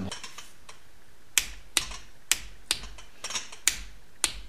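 Torque wrench clicking as it tightens a nut on a stud to 8 foot-pounds: a series of sharp metallic clicks, about two a second, starting about a second and a half in.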